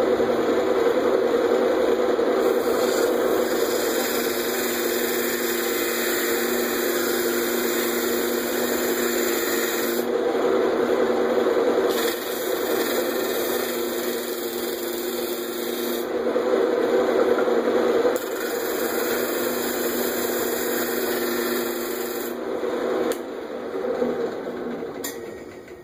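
Wood lathe running a sanding disc, with a mitre-cut wood piece pressed against the disc in several passes, a gritty sanding hiss that comes and goes over the steady motor hum. The sound tails off near the end.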